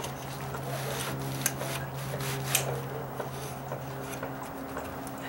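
Black matting underlayment for deck pavers being slid and pushed across the deck by a gloved hand: a scraping rub with a few sharp ticks, over a steady low hum.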